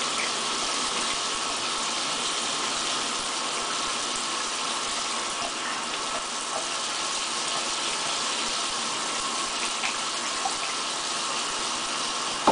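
Shower running steadily, the spray hissing and splashing onto the tub floor and echoing in a small tiled bathroom.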